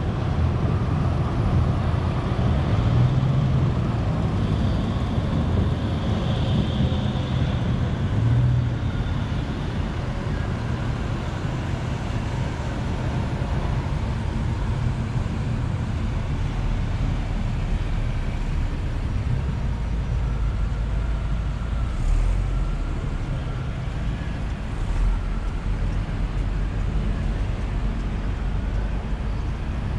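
A slow procession of hearses driving past one after another: engines running and tyres rolling on asphalt, a steady traffic rumble that swells a little as each car passes.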